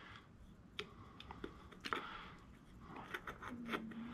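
Faint scattered clicks and light knocks of a plastic spray-can cap being handled in and out of the axle hole of a Ford 9-inch differential carrier.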